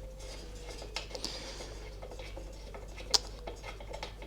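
Light metallic clicks and handling as a spark plug is unscrewed from a lawn mower engine with a plug socket, with one sharper click about three seconds in, over a faint steady hum.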